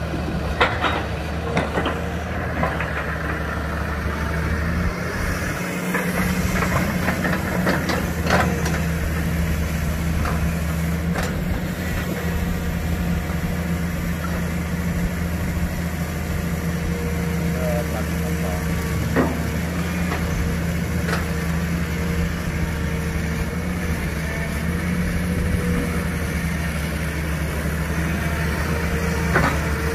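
Hydraulic excavator's diesel engine running steadily, with occasional sharp clanks and knocks from the machine working. The engine gets a little louder about five seconds in.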